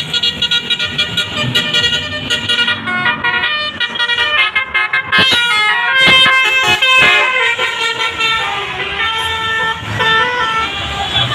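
Basuri musical horn on a bus playing a tune: a fast run of stepped horn notes, with a burst of short, clipped notes in the middle.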